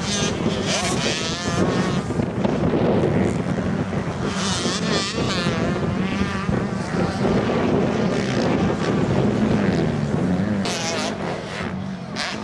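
Motocross bike engines revving hard, their pitch rising and falling again and again as the bikes accelerate and shift through the gears.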